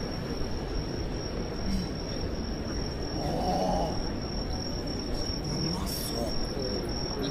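City street ambience: a steady low rumble of traffic and crowd, with snatches of distant voices about three seconds in and a thin steady high-pitched tone throughout.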